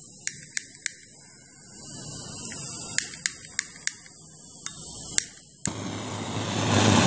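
Blowtorch igniter clicking repeatedly, in runs of sharp clicks about three a second, until the torch catches a little over five seconds in and starts a steady rushing hiss of flame.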